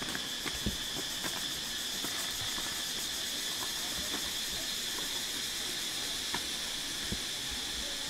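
Steady, high insect droning from the surrounding jungle, with a fast pulsing edge, and a few soft thumps of bare feet stepping on rocks.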